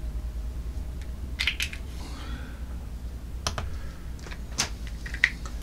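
A few light clicks and taps from hands working at a digital kitchen scale and small plastic flavour bottles, including the press of the scale's tare button that zeroes it.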